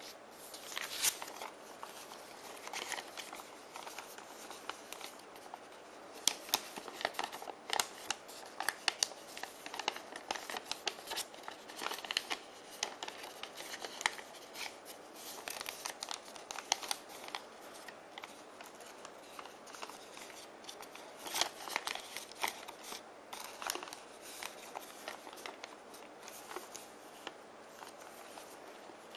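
Origami paper being folded and creased by hand: irregular crisp crackles and rustles as the sheet is handled and pressed, coming in flurries with short lulls between.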